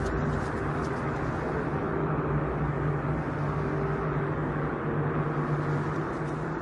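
Steady low rumbling drone with a held hum, a dark ambience sound effect that neither swells nor breaks off.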